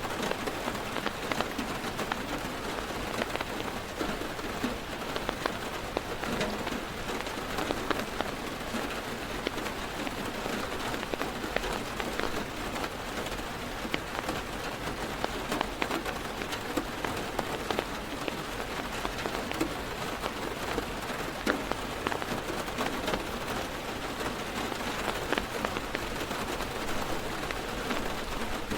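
Heavy rain falling on a car's roof and windows, heard from inside the car: a steady hiss with many individual drops ticking on the glass and metal.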